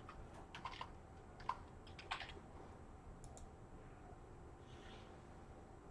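Faint computer keyboard keystrokes and clicks, scattered and irregular, mostly in the first two seconds, with a couple more a little after three seconds.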